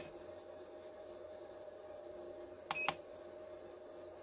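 A button press on a YH800-3 digital readout's keypad, one short electronic beep about two-thirds of the way in, confirming an entered value. A steady low electrical hum with a faint high whine runs underneath.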